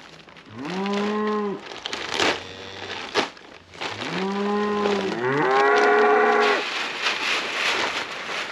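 Cows mooing: three long calls, one about half a second in and two back to back in the middle, the last one sliding up in pitch. Two sharp knocks come between the first and second call.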